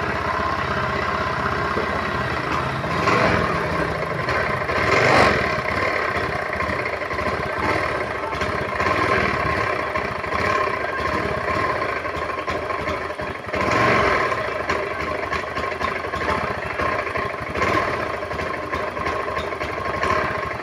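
Honda automatic scooter's single-cylinder fuel-injected engine running rough and stuttering, blipped up in short swells several times. The stutter is the fault being chased: it is bad at low throttle and clears at high throttle, and persists after a burnt ECU socket wire was repaired and the injector cleaned.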